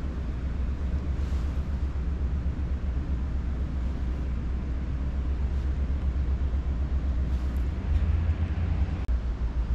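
Cat purring steadily, a low close rumble while it is being stroked.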